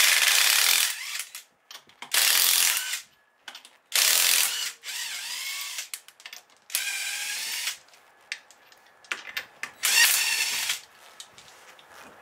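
Cordless impact wrench rattling in five bursts of about a second each, spinning off a car's wheel nuts one after another.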